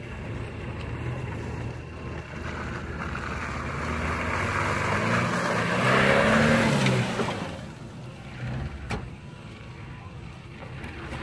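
Suzuki Jimny's engine revving harder as it drives through a muddy puddle, its pitch and loudness rising to a peak about six seconds in along with a rush of splashing water. It then drops back to a lower, quieter engine note as the vehicle moves away.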